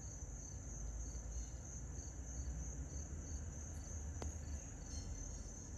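Insects trilling steadily in the background: a continuous high-pitched trill, with a second chirp repeating about twice a second. A low rumble runs underneath, and a single faint click comes about four seconds in.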